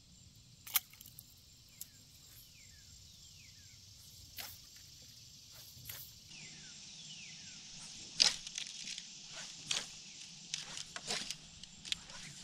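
Riverside nature sounds: a steady high insect drone, a run of short falling chirps through the first half, and scattered sharp clicks and knocks that grow more frequent in the second half.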